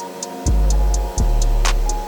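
Instrumental background music with a steady beat: deep bass notes, quick high hi-hat-like ticks and a sharp snare-like hit near the end.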